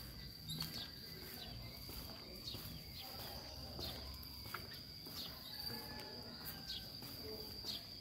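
An insect, likely a cricket, trilling on one steady high note, with short sharp bird chirps here and there and soft footsteps on pavement.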